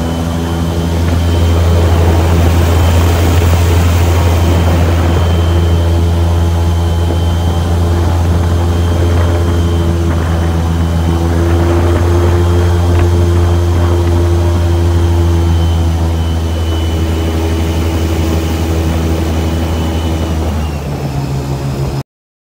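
Airboat's engine and large air propeller running at speed, a loud steady drone that swells about two seconds in. It eases off and drops in pitch near the end, then cuts off suddenly.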